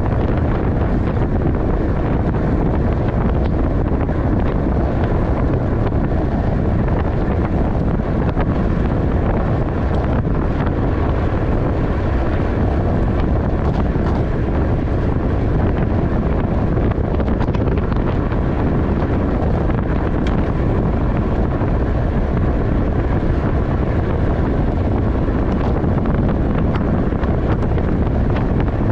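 Steady wind buffeting on the microphone of a camera riding along in a bike race at race speed.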